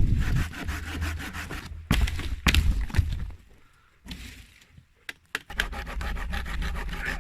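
Folding hand saw cutting a piece of dead oak, quick back-and-forth strokes in several runs with short pauses between them.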